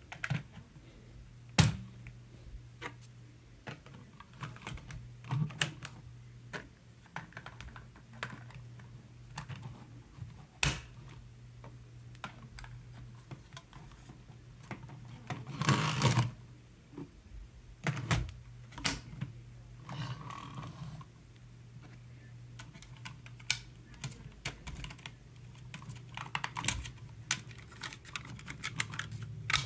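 Hard plastic armour and weapon pieces being fitted and snapped onto a Zuru Robo Alive Dino Wars Mega-Rex toy dinosaur: irregular clicks, taps and knocks of plastic on plastic, with a longer rattling scrape about halfway through.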